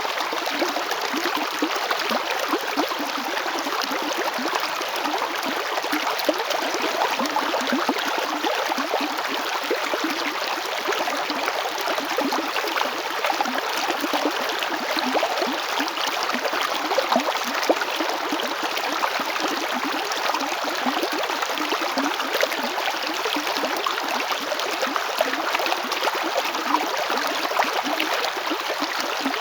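A river flowing over stones: steady rushing and babbling water with constant small splashes and gurgles.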